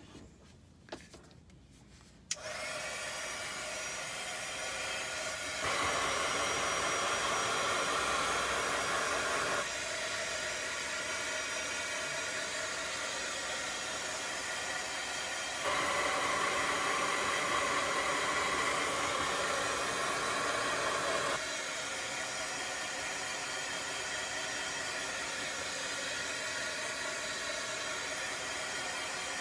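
Small corded handheld dryer switched on about two seconds in and blowing steadily, drying freshly applied chalk paste on a chalkboard. It grows louder twice for a few seconds as it is moved around.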